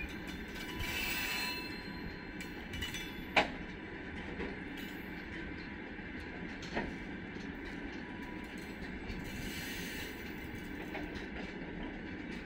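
Open freight wagons of a freight train rolling past on the rails with a steady wheel rumble. A brief high wheel squeal comes about a second in, a sharp clank about three and a half seconds in, and a fainter clank near seven seconds.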